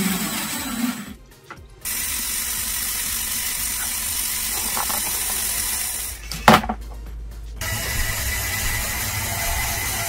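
Lego Technic washing machine mechanism running, with its motors and gears whirring in a few short stretches split by brief silences. A whine falls in pitch in the first second, and a sharp click comes about six and a half seconds in.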